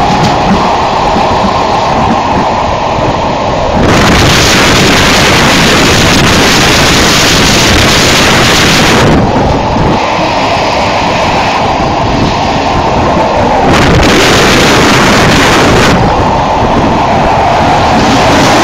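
Passenger train running at speed, heard from inside the carriage: a steady rumble and rattle of the running gear mixed with wind rushing on the microphone. The hiss grows louder twice for several seconds at a time.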